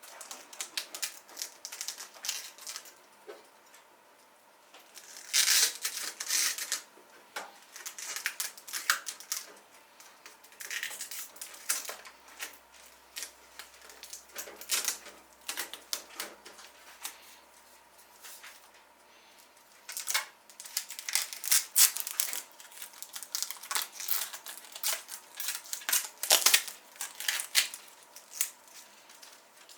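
Hands handling computer parts and plastic packaging: irregular sharp clicks, taps and crinkling rustles in clusters, with short pauses between.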